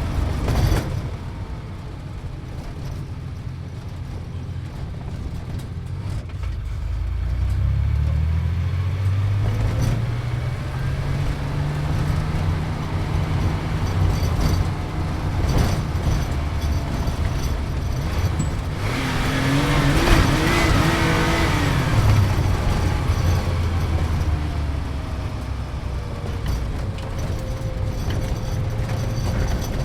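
Sports car engine heard from inside the cabin while driving. The engine note climbs about a quarter of the way in, rises to its highest revs about two-thirds through, then falls away as the car eases off.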